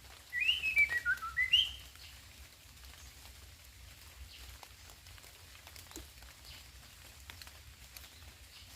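A white-rumped shama sings one short whistled phrase: a few quick notes stepping down in pitch, then a higher note, lasting about a second and a half near the start.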